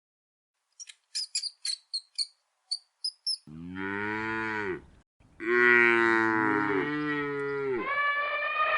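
Cow mooing twice: two long calls that slide down in pitch, the second longer and louder, after a run of short high chirps. Near the end a different, steadier and higher-pitched call begins.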